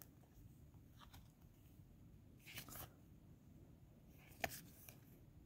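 Near silence with a few faint brushes of cardboard trading cards sliding against one another as they are sorted in the hands, and a sharper card flick about four and a half seconds in.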